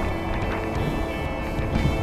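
Background music with steady held notes over a continuous low rumble.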